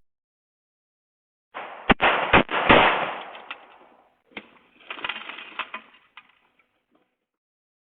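A rapid series of sharp bangs in two clusters: a loud one about a second and a half in, then a softer one a few seconds later.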